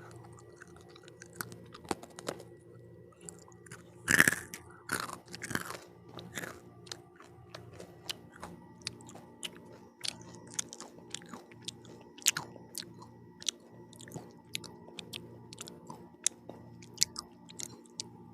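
Close-up eating sounds: a person biting and chewing pizza, with many small crisp crunches and mouth clicks, and a louder cluster of bites about four seconds in.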